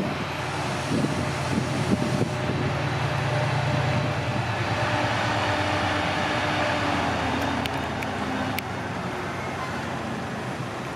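Class 68 diesel locomotive's Caterpillar V16 engine running as the train stands at the crossing: a low steady hum with a few thumps at first, easing after about four seconds. A few sharp clicks come near the end.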